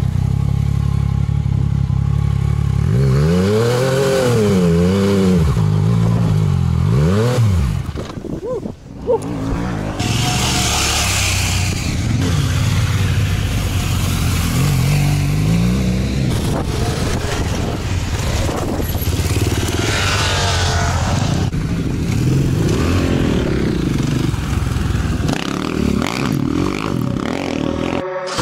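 Yamaha MT-09's inline three-cylinder engine heard onboard while riding on dirt, revving up and down several times between about three and eight seconds in, then pulling at a steadier throttle.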